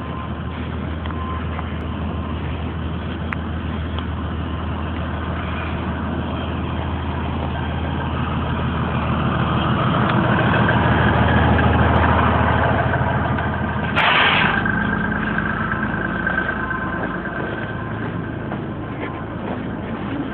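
A heavy vehicle's engine running close by, its low drone swelling to a peak about ten to twelve seconds in, then a short burst of hiss about fourteen seconds in.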